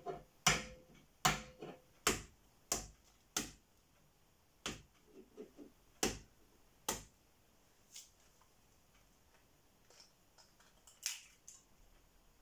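A raw egg being knocked against a hard edge to crack it: a run of sharp taps, about one every two-thirds of a second at first, then more spaced out, with a few faint crackles of shell about five seconds in.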